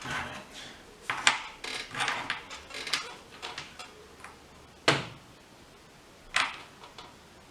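Small objects being handled and set down on a workbench: a scatter of light clicks and knocks over the first few seconds, then two sharper single knocks about five and six and a half seconds in.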